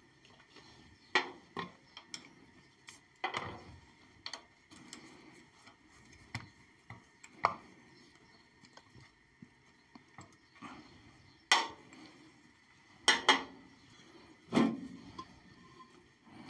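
Irregular sharp metallic clicks and knocks as the screws of a lathe headstock's sheet-metal cover are undone with a hex key and the cover is handled and lifted off. The loudest knocks come in the last few seconds.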